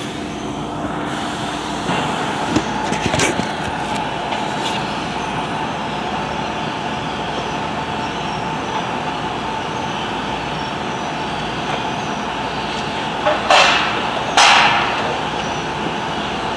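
Steady drone of metalworking-shop machinery with a steady whine running under it. Near the end come two short, loud bursts of noise about a second apart.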